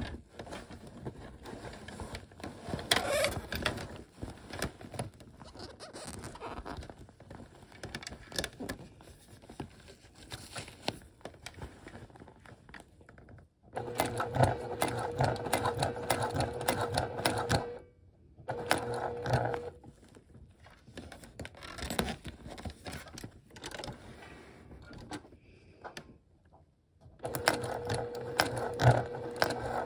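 Sewing machine stitching through thick vinyl and lining, running in bursts and stopping between them: a long run around the middle, a short one just after, and another near the end. Before the first run there are irregular clicks and rustles as the work is handled.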